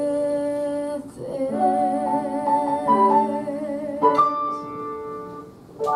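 A woman singing the final held note of a musical-theatre song, with vibrato, over sustained accompaniment chords. A last chord comes in about four seconds in and rings out, and another is struck near the end.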